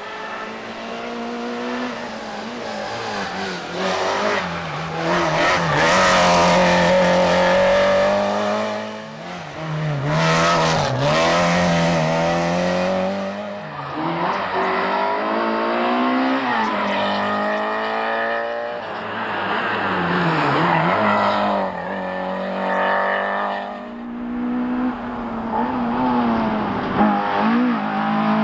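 Peugeot 205 rally cars driven flat out on a stage, engines revving hard and falling back through gear changes as several cars pass in turn.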